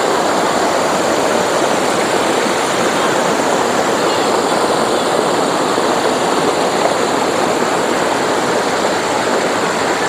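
Waterfall cascading down smooth rock slabs, heard close up as a steady, unbroken rush of water.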